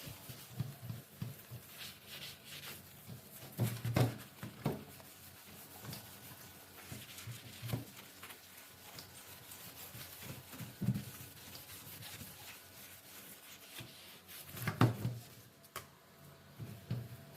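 Cloth rubbing on kitchen sink cabinet doors as they are wiped clean, with a few short knocks and clunks from the doors and handling, the loudest near the end.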